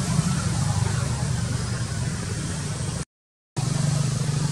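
Steady low rumble with a hiss, cut by a sudden half-second dropout to dead silence about three seconds in, after which the rumble resumes.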